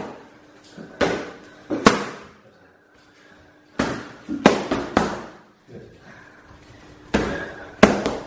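Boxing gloves hitting hand-held focus mitts in pad work: sharp slaps in quick combinations, two, then three, then two, each with a short echo off the walls.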